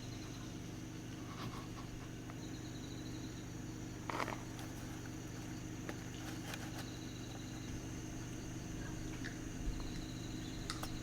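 Insects chirping: a steady high trill with a pulsing chirp that comes and goes, over a low steady hum. A few sharp clicks or knocks stand out, the loudest about four seconds in.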